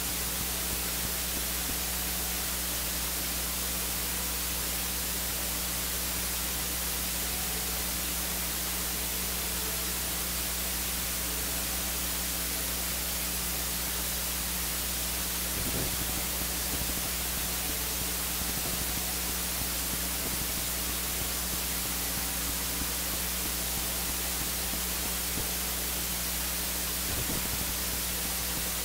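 Steady static hiss with a low electrical hum, the recording's own noise, with two faint knocks, one about halfway through and one near the end.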